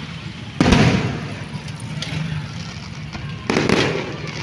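Fireworks display: two firework shells bursting overhead, the first about half a second in and the second about three seconds later, each bang trailing off over a second or so.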